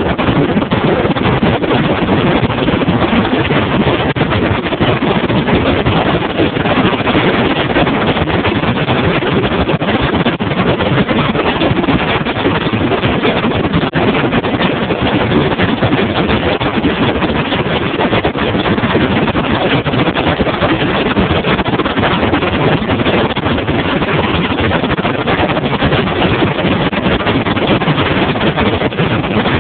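Bass boat running at speed across open water: a loud, steady rush of wind on the microphone mixed with the outboard motor running and water against the hull.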